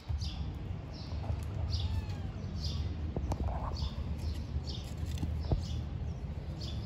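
A bird chirping over and over, short high chirps one or two times a second, over a low steady rumble.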